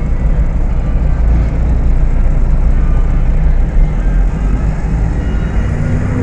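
Diesel engine of a Volksbus 18.280 OTS city bus running steadily under way, with one heavy thump about four seconds in; near the end the engine note starts to rise as the bus accelerates.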